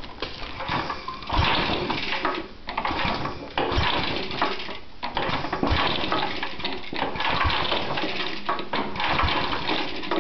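Lawn tractor engine being turned over by hand pulls with the ignition off, priming it to draw HHO gas through the water bubbler: a rushing hiss that begins about a second and a half in and surges again a couple of times, with a few low knocks.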